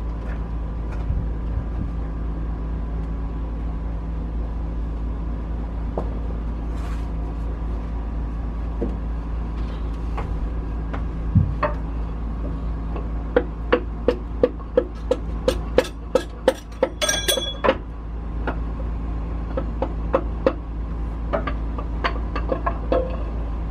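Steady low mechanical hum. Over it, in the second half, comes a quick run of metallic clicks and taps from tools and engine parts being handled, one of them a ringing metal clink.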